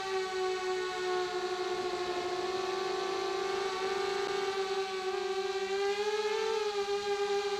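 Electric motors and propellers of an MXP230 quadcopter whining steadily in flight: one pitched hum with many overtones that drifts slightly up and down with the throttle, rising a little about six seconds in.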